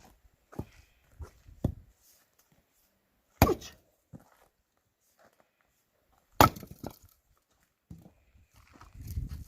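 Axe splitting firewood: two loud, sharp blows about three seconds apart, with a few lighter wooden knocks in the first two seconds.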